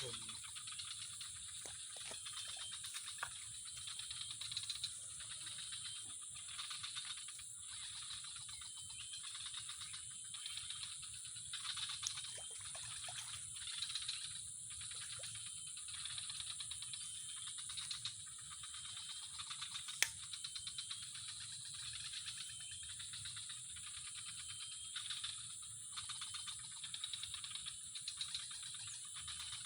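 Steady high-pitched chirring with pulsed trills that come and go every second or so, from calling animals. A single sharp click sounds about twenty seconds in.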